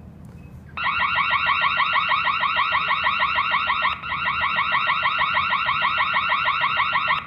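KERUI G90B burglar alarm system siren sounding a fast, repeating warble, set off by a triggered door sensor. It starts about a second in, breaks off for an instant midway, and cuts off at the end.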